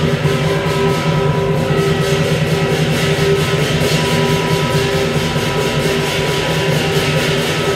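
Lion dance percussion: a Chinese drum beaten in rapid, steady strokes with clashing cymbals and a ringing gong, a deafening, unbroken din.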